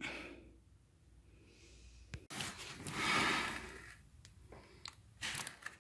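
A man breathing close to a phone's microphone, with one long exhale about three seconds in and a few faint clicks of handling noise.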